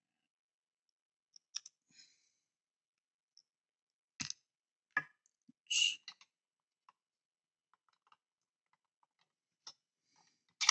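Scattered small clicks and short scrapes of hard plastic model parts knocking and rubbing together as a wheel is fitted onto a model car's hub.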